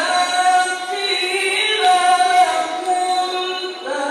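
A male qari reciting the Quran in the melodic tilawah style into a microphone, holding long, high, ornamented notes. The phrase eases off about four seconds in and a new one begins.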